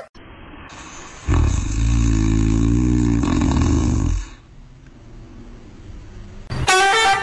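French bulldog snoring while asleep: one loud, low snore beginning about a second in and lasting about three seconds.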